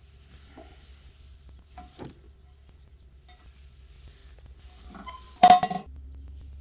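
A few light metal clinks, then a loud metal clank with a brief ringing clatter about five and a half seconds in, over a steady low hum.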